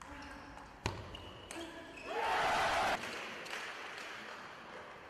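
Table tennis ball being struck and bouncing on the table in a rally, with one sharp crack about a second in. About two seconds in, a loud burst of noise lasts just under a second and cuts off abruptly.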